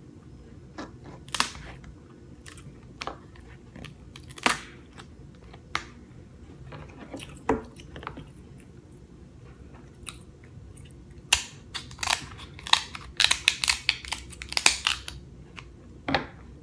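Close-up eating of king crab legs: chewing with scattered sharp clicks, then a quick run of loud clicks and crackles near the end as the crab is worked and eaten.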